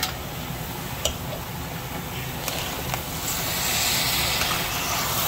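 Sugar-and-milk syrup boiling around freshly added rice in an aluminium pot, a steady bubbling hiss with a low rumble under it that grows louder about three seconds in. A metal slotted spoon taps against the pot about a second in and again a little later.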